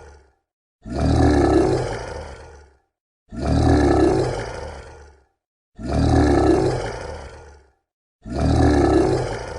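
Monster roar sound effect, the same roar looped: four full roars about two and a half seconds apart, each starting suddenly and fading out over about two seconds.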